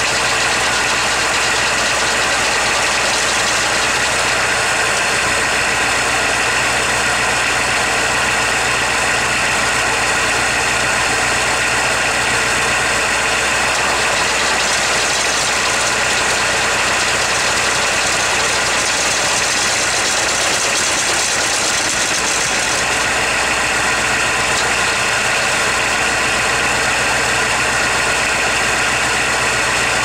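An engine idling steadily and evenly, with no change in speed.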